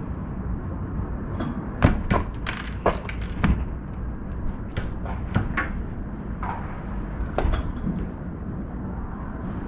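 Birds at a feeding dish, pecking and knocking against it: irregular runs of sharp taps and clicks, loudest about two seconds in, over a steady low rumble of wind.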